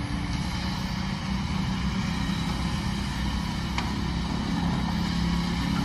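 Kobelco SK200 excavator's diesel engine running steadily, getting a little louder about four and a half seconds in.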